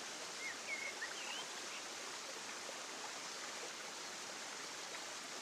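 Steady rushing outdoor ambience, with a few short, high chirps about half a second to a second and a half in.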